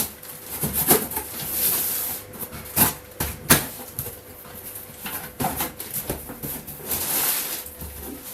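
A delivery parcel being opened and unpacked: rustling and tearing of the packaging, with several sharp knocks as items are handled, the loudest a little after three seconds in.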